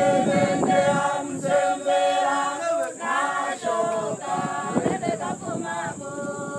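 Hadzabe men and women singing together unaccompanied for their dance, several voices overlapping in a chanted, repeating melody.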